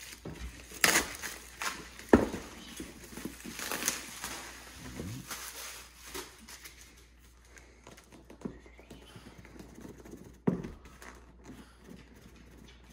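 Cardboard packaging of an Apple MacBook Pro being handled: the retail box slid out of its white cardboard shipping sleeve and set down on a table, with rustling and scraping and several irregular knocks, the loudest about two seconds in.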